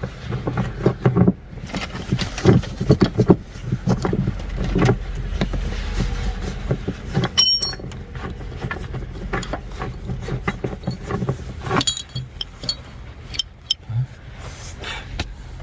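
Socket ratchet and wrench working a seat-belt anchor bolt loose in a car: irregular clicks and knocks, with a few short metallic clinks, over a steady low rumble.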